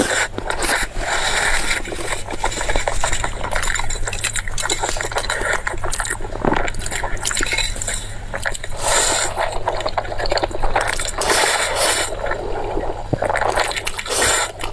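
Close-miked eating: wet chewing, smacking and crunching of shrimp and pork cake, a dense run of short clicks and smacks.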